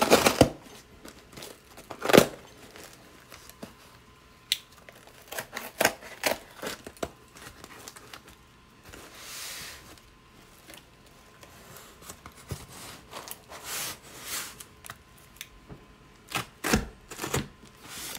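Cardboard packaging being cut and torn open by hand: scattered clicks, knocks and scrapes, with a longer tearing rasp about nine seconds in and a quick run of clicks near the end.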